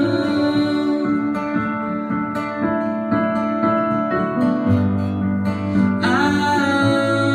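Live acoustic guitar strumming with piano played on a Nord Stage keyboard; a singing voice comes in about six seconds in.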